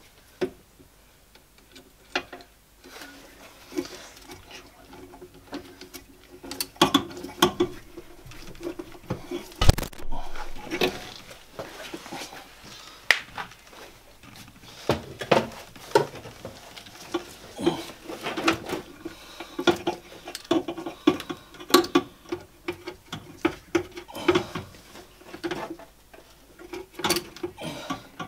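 Hands working on parts under a classic Mini's dashboard: irregular clicks, knocks and light clattering rattles, with a sharp knock about ten seconds in. This is the work of refitting the heater unit and its hoses.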